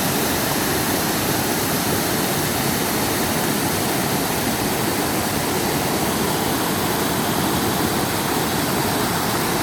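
Mountain valley stream rushing steadily, an even, unbroken sound of running water.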